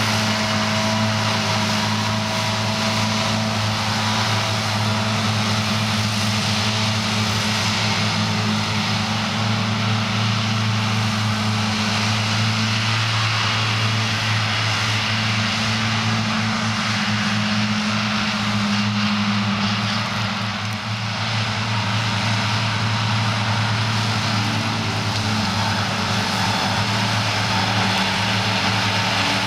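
Diesel engines of New Holland tractors running steadily under load while driving grass mowers that are cutting, a constant low engine hum under a broad whirr.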